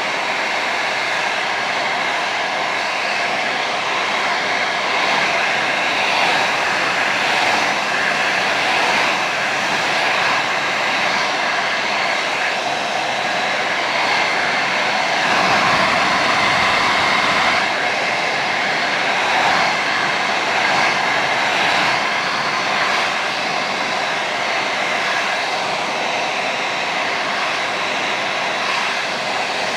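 Hot & Hotter 1875 Professional hand-held hair dryer running on its highest heat setting: a steady rush of air with a high motor whine. A deeper rumble comes in briefly about halfway through.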